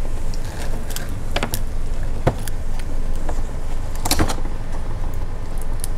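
Fingers prying open the wet, soft shell of a boiled peanut: a few small clicks and cracks over a steady low rumble.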